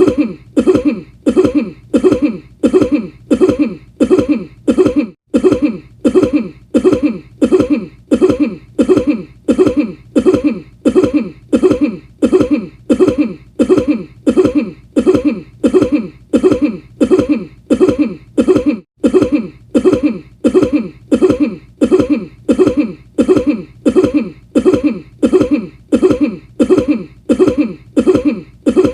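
A person coughing over and over: the same short cough repeated at an even, steady pace, like a loop.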